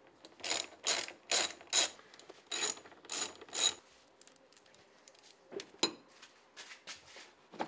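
Socket ratchet with a 10 mm socket clicking in short bursts, about seven strokes over the first four seconds, loosening bolts to take off the air intake. A couple of softer clicks follow around six seconds in.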